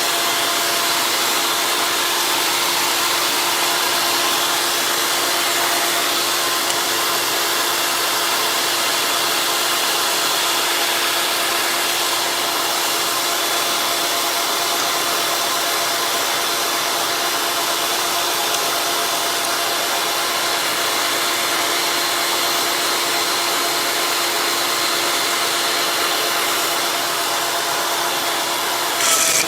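Electric motor of a Ringanator jump-ring cutting machine running steadily with a constant hum, with a short knock near the end.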